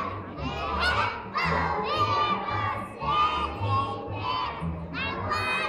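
A group of young children singing a song together, many voices at once and not in unison, over accompaniment music with a steady bass line.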